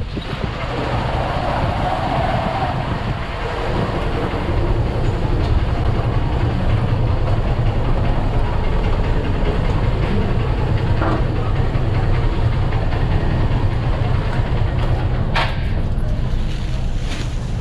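Honda Unicorn's single-cylinder motorcycle engine running at low speed with a steady low rumble as the bike is ridden slowly, with a couple of sharp clicks near the end.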